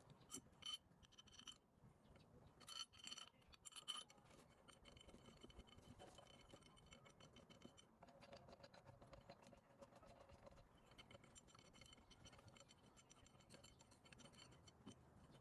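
Faint scratching and a few light clinks in the first four seconds, then a faint steady background.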